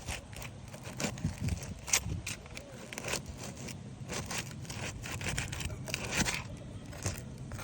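Asphalt roof shingles being worked loose with hand roofing tools: irregular scrapes, crackles and sharp clicks as the shingles are pried up.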